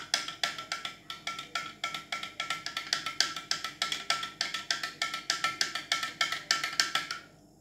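A spoon stirring chocolate milk in a glass, clinking quickly and evenly against the sides about five or six times a second, with the glass ringing on one note; the stirring stops just before the end.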